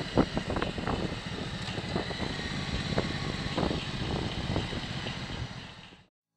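Ducati Multistrada motorcycle engine running under way, heard from the bike with wind rush over the microphone, fading out near the end.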